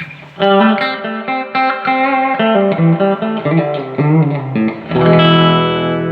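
Electric guitar played through a Fender Hot Rod Deluxe tube amp fitted with a new pair of 6L6GC power tubes: a quick run of single notes with a bent note near the end, then a chord struck about five seconds in and left ringing.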